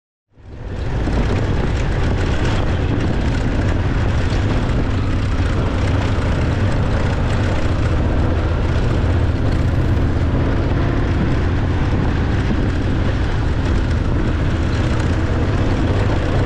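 Motorcycle engine running with heavy wind rush on the microphone of a camera riding along with the bike, steady and loud after a quick fade-in.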